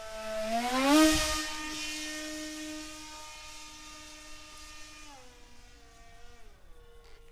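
Foamboard RC model of a Boeing T-7 Red Hawk passing low with its motor whining: the whine rises in pitch and is loudest about a second in, with a rush of air, holds steady, then drops in pitch about five seconds in and fades as the model flies off.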